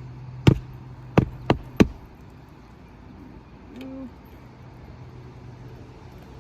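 Four sharp shots of a roofing nail gun driving the last four fasteners into an asphalt shingle, three of them in quick succession.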